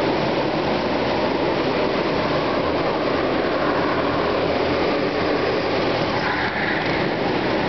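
Go-kart engines running as several karts race around an indoor track: a steady engine drone, with two karts passing close near the end.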